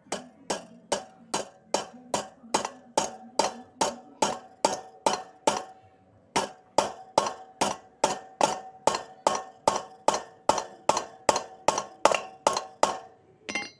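Hammer blows, about two and a half a second, tapping rubber damper bushings into the sprocket carrier of a Megapro motorcycle's rear wheel hub, each strike with a short metallic ring. The hammering stops briefly about six seconds in, then carries on, with one last strike near the end.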